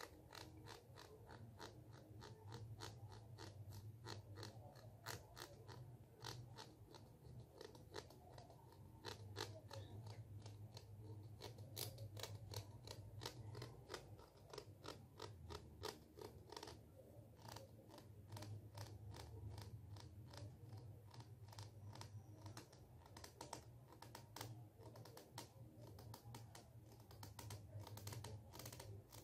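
Thumb raked across the teeth of a plastic comb close to the microphone: runs of quick, crisp clicks, a few a second, with a short pause about halfway through, over a faint low hum.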